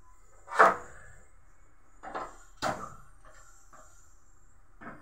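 A few sharp knocks and clatters of kitchen containers and utensils being picked up and set down on the counter, the loudest about half a second in, then two more around two to three seconds and lighter ones near the end.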